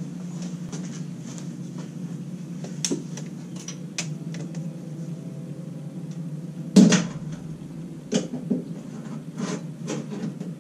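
Scattered clinks and knocks of hand tools and hardware as nuts are fastened to mount a master cylinder on a brake booster, with one louder knock about seven seconds in and a few more near the end, over a steady low background hum.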